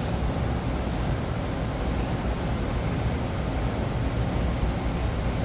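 Steady ventilation blower and airflow noise: an even, low rumble with a hiss of moving air above it.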